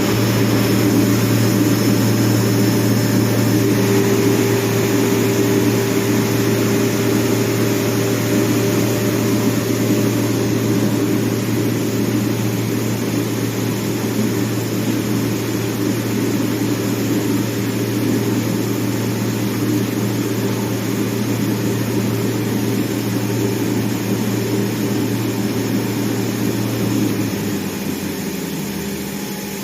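CNC plasma cutter cutting metal flat bar: a loud, steady hiss over a low hum. The hum stops near the end.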